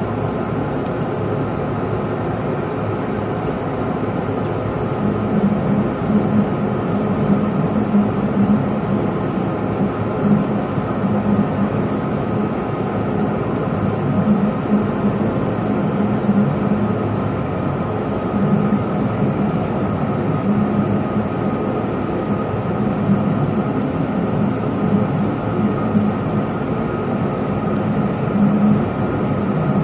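Laser cutter with a rotary attachment cutting a cylindrical tube: steady machine noise, with a motor hum that comes in about five seconds in and keeps rising and falling as the cut runs.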